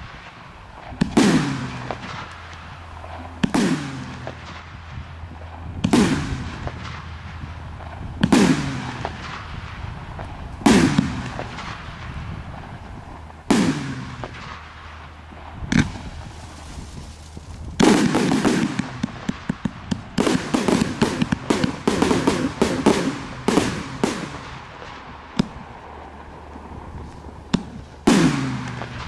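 A TB201 288-shot professional fireworks cake firing its shots one by one: a sharp bang about every two and a half seconds, each trailing off. About two-thirds of the way through comes a run of rapid crackling lasting several seconds, then another bang near the end.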